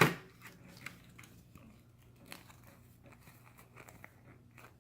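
A small cardboard product box being opened and its packed contents handled: a sharp snap at the very start, then faint scattered rustles and ticks of paper and plastic packaging.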